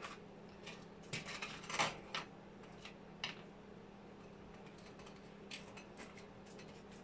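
Small air-rifle parts being handled on a tabletop, clicking and clattering: a quick run of clatters about a second in, a single click a little later, then a few faint clicks. A faint steady hum runs underneath.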